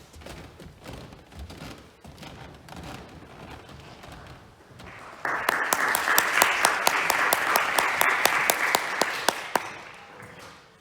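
Audience applause that starts suddenly about five seconds in, dense with individual sharp claps, and dies away near the end. Before it, faint shuffling and knocks.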